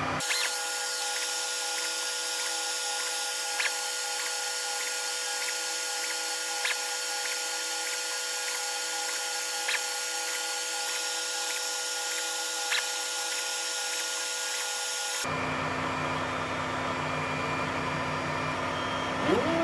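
Anet A8 3D printer running its auto bed-levelling routine in sped-up footage: a steady high whine from its stepper motors and fans, with regular ticks and a sharper tick about every three seconds as the probe moves from point to point. About fifteen seconds in it switches abruptly to the printer's lower steady hum at normal speed.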